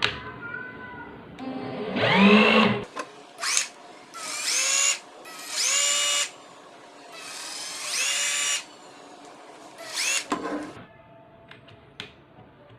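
Cordless drill motor run in several short bursts on the trigger. Each burst whines up to speed and holds briefly before stopping, as the repaired drill is tested.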